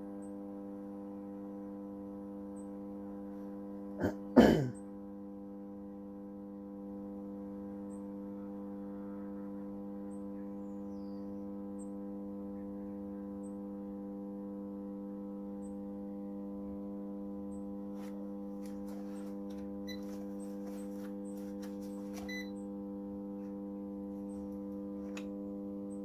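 Microwave oven transformer humming steadily while its thick-cable secondary is shorted through a red-hot bolt, drawing about 500 amps. A brief loud sound with a falling pitch cuts in about four seconds in, and faint ticks come in the second half.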